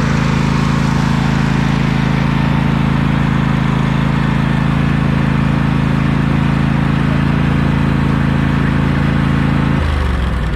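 Riding lawn mower engine running at a steady speed. Near the end the engine note drops to a lower pitch.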